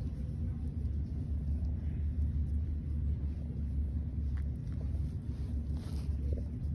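Cat purring steadily as it is stroked on the head and cheeks: a continuous low rumble.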